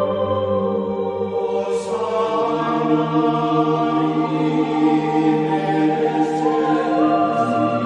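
Slow ambient background music of long held chords, changing pitch about two seconds in and again near the end.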